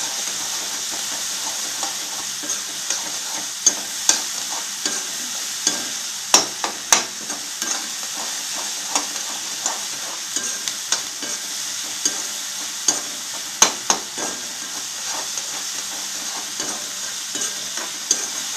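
Onions and tomatoes frying in oil in a non-stick kadai, giving a steady sizzle. A spatula stirs them, with irregular scrapes and sharp taps against the pan, a few of them louder.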